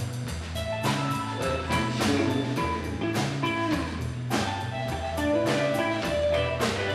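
Live rock band playing an instrumental passage: electric guitar and a bass line over a drum kit, with cymbal hits about once a second.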